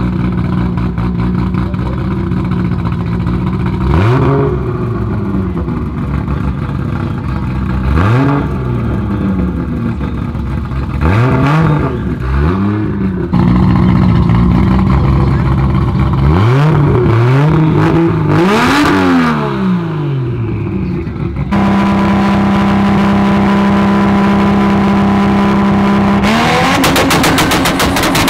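Toyota Supra's 2JZ inline-six idling, then revved in a series of blips that rise and fall back to idle. Later it holds a steady rev, and near the end it climbs onto the two-step launch limiter, popping and crackling rapidly.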